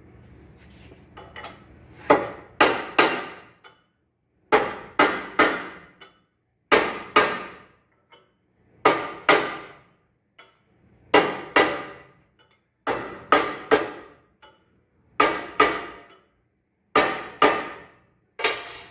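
Hammer blows on the steel ring gear of a tractor flywheel, driving the oven-heated gear down to seat it. Sharp ringing metal strikes come in quick groups of two or three, a group about every two seconds.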